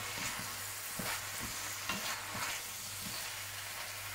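Bell pepper and pork sizzling in hot oil in a stainless steel wok, stirred with a wooden spatula that scrapes and knocks against the pan at irregular moments, with a low steady hum underneath.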